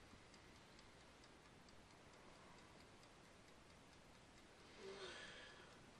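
Faint, quick, even ticking of a wind-up mechanical kitchen timer running down. About five seconds in there is a short breath.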